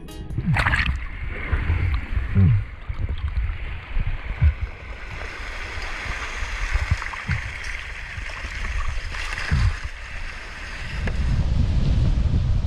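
Water sloshing and gurgling around the camera as a diver swims, with a few short low swooshes. Near the end it gives way to a louder steady rush of waves and wind on the microphone.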